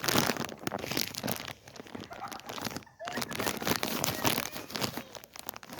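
Footsteps crunching through snow: a dense crackling crunch that breaks off briefly about halfway.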